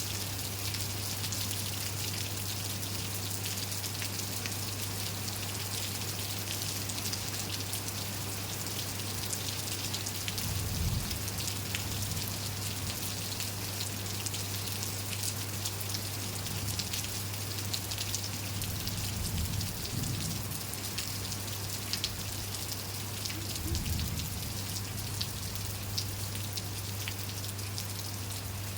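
Steady rain falling, with many separate drop hits close by. A few brief low rumbles come through, about a third of the way in and again later on.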